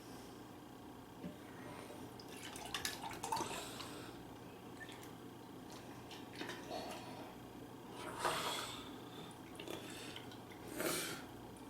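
Wet eating and drinking mouth sounds, several short bursts a few seconds apart.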